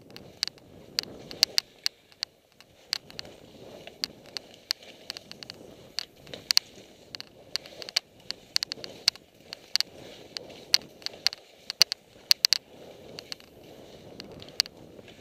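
Skis swishing through deep powder snow in turns, a low hiss that swells and fades every second or two, with many sharp, irregular clicks and ticks several times a second.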